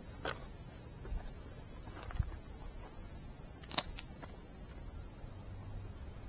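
Steady high-pitched insect chorus in summer woodland, with a few footsteps scuffing and clicking on the dirt and rock trail; the sharpest steps land near the four-second mark.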